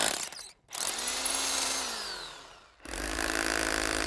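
Hammer drill boring into granite: the drilling stops, the motor whines down with a falling pitch, and drilling starts again about three seconds in.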